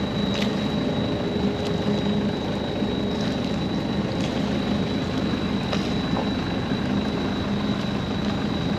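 Sailboat's inboard engine running steadily as the boat motors with its sails furled, with a thin steady high whine over the engine noise.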